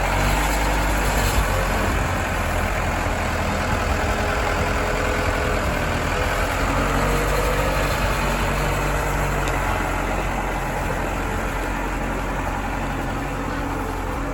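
Backhoe loader's diesel engine running steadily, its pitch shifting slightly about halfway through as the machine is worked.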